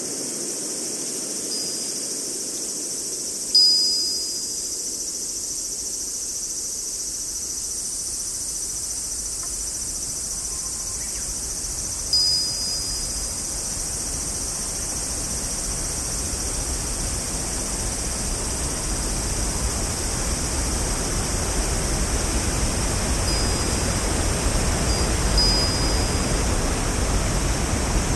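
Nature ambience: a steady high-pitched insect chorus, like crickets, with two ringing chime strikes that fade away, about three and a half and twelve seconds in. A low rushing noise, like flowing water, grows louder through the second half.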